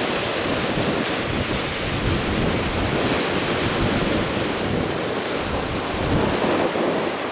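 Strong wind buffeting the microphone in gusts over the steady rush of rough sea and waves.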